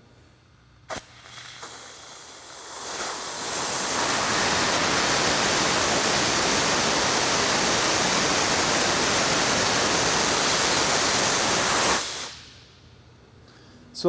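A steam boiler's center tricock being blown down: after a click about a second in, steam and water rush out of the open valve with a loud, steady hiss that builds over a few seconds, then stops sharply near the end as the valve is shut. The water coming out with the steam shows the boiler's water level reaches up to the center cock.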